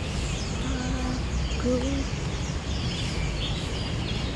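Small birds chirping in the trees, many quick high notes throughout, over a steady low rumble. Two short low coo-like notes come about one and two seconds in.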